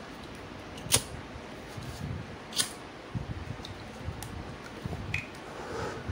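Quiet handling noises with a few sharp plastic clicks, two clearest about a second apart near the start, as a plastic syringe draws liquid medicine from a small plastic bottle.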